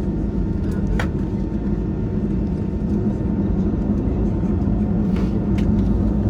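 Steady cabin rumble of an Airbus A320-216 with CFM56-5B engines, heard from inside the cabin near the rear, with a few small clicks.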